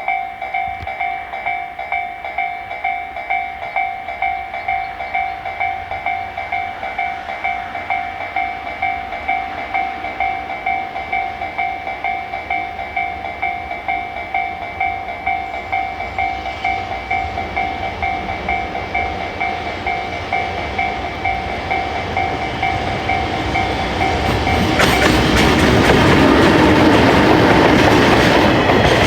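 Japanese railway level-crossing alarm ringing a rapid, steady electronic ding-ding. Over the last third a train comes up and passes over the crossing, growing loud enough to drown out the bell.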